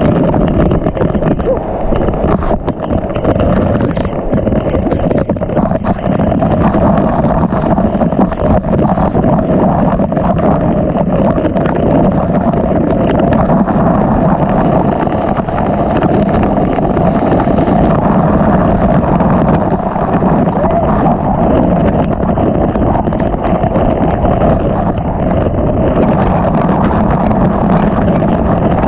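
Loud, steady rushing of a rain-swollen creek and waterfall, with no breaks.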